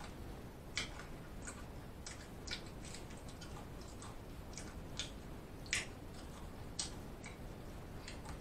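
A person chewing food with the mouth closed, close to the microphone: soft, irregular wet clicks and smacks about once or twice a second.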